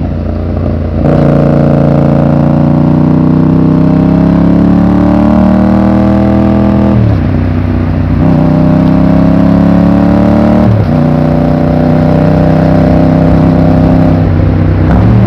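Yamaha MT-07's parallel-twin engine pulling under throttle, its pitch climbing slowly through the gears. The pitch drops sharply twice, at about 7 s and 11 s, as it shifts up.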